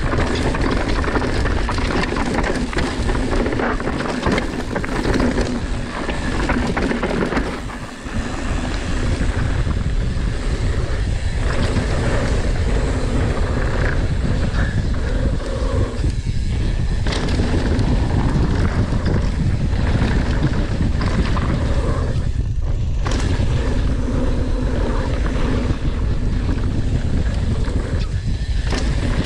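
Wind rushing over the camera microphone and a mountain bike's tyres rolling fast over a dirt downhill trail. The noise is steady, with a few short lulls.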